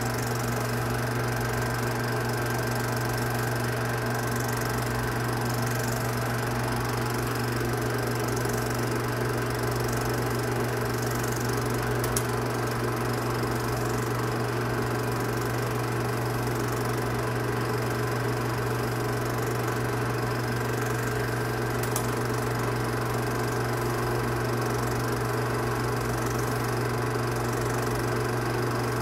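Film projector running with a steady mechanical whir and hum, with two sharp clicks about twelve and twenty-two seconds in.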